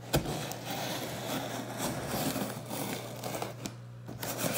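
Husqvarna carpenter's axe blade slitting the packing tape on a cardboard box: a sharp tick as the edge goes in, then a few seconds of crackling tape and scraping cardboard that dies away near the end.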